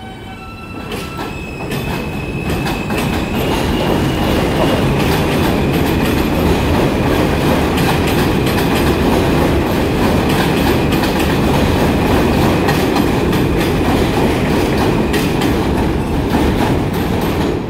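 New York City subway train coming in, growing louder over the first couple of seconds. It then clatters steadily over the rail joints, with a high, steady whine over the noise for most of the time.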